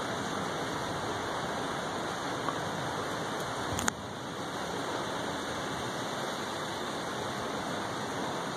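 Heavy rain pouring down in a severe thunderstorm: a steady, even hiss. There is a single sharp click about four seconds in.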